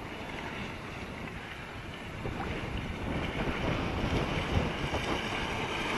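Wind rumbling on the microphone over the faint rush of a radio-controlled jet boat running on a pond at just under half throttle, growing a little louder after about two seconds.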